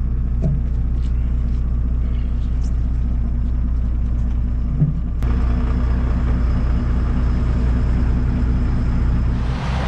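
Boat engine idling close by, a steady low rumble. Near the end, wind noise on the microphone starts to rise.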